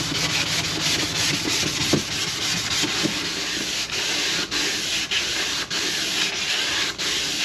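Wet sanding of motorcycle saddlebags: sandpaper rubbing back and forth over the wetted bag surface in steady strokes, under two a second, as the bags are prepped for paint.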